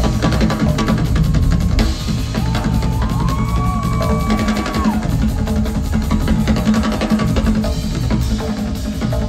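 Two drum kits and congas playing a busy percussion section together, with kick drum, snare and cymbals, heard from far back in a large concert venue.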